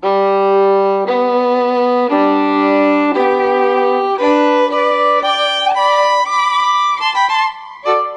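Background music: a violin melody in long held notes, about one a second, moving to quicker notes after about five seconds.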